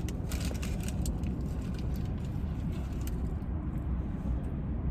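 Steady low rumble of a car, heard from inside the cabin, with faint scattered small clicks.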